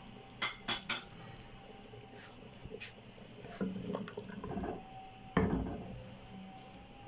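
Wooden spoon stirring a thick curry in a clay pot, scraping and knocking against the pot. There are three sharp taps about half a second to a second in, and the loudest knock about five and a half seconds in.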